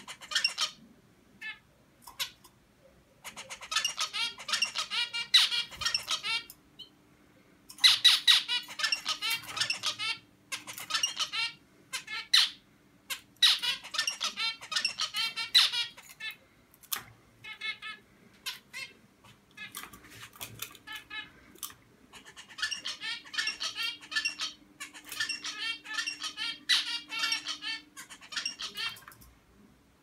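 Young male zebra finch singing its still-immature song: repeated bouts of short, buzzy notes in quick runs, a second to several seconds long, with brief pauses between them.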